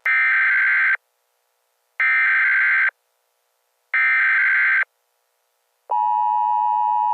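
Emergency Alert System alert tones: three one-second bursts of shrill, buzzing digital header tones about a second apart, then, about six seconds in, the steady, harsh two-tone EAS attention signal begins.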